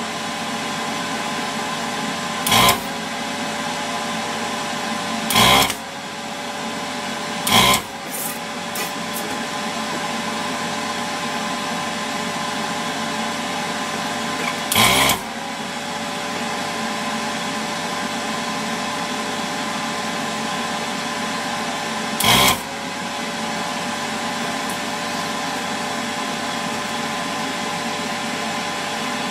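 Electric desoldering tool's vacuum pump running with a steady hum, with five short, loud hisses as the suction is triggered to draw molten solder off the joints. The pump's note dips briefly after each hiss and recovers.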